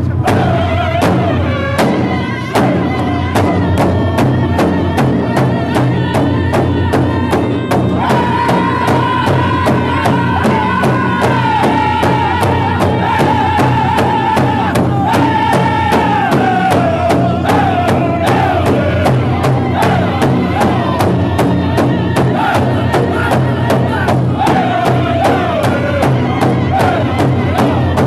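Powwow drum group singing a contest song: a chorus of men's voices in high, falling phrases over a steady, even beat on a large shared bass drum, struck together by the seated singers with drumsticks.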